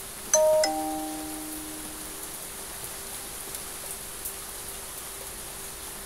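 Steady rain hiss, with a two-note ding-dong chime, a higher note then a lower one, sounding about a third of a second in and ringing out over a second or so.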